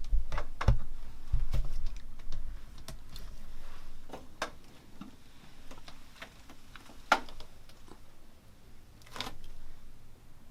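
A few heavy low thumps in the first two seconds, then scattered, irregular sharp clicks and knocks.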